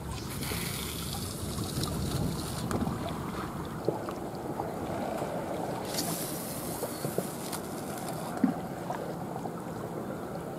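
Wind on the microphone and small waves lapping at the bank, with two stronger gusts of hiss and a few light clicks.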